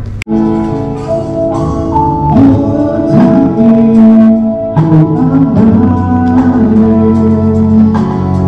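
A gospel-style song: singing with musical accompaniment, in long held notes. An earlier guitar passage cuts off abruptly just as it begins.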